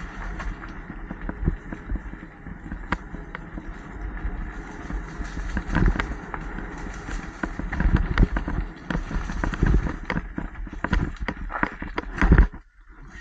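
Mountain bike riding over rough dirt singletrack, heard from a helmet camera: a steady rumble of tyres on dirt with frequent knocks and rattles of the bike over bumps. A loud thump comes about twelve seconds in, and then it goes briefly quieter.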